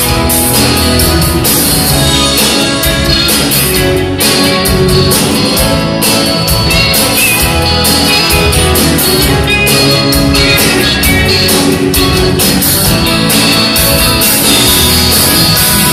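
Live band playing an instrumental break: acoustic and electric guitars over bass and keyboard, with a steady beat.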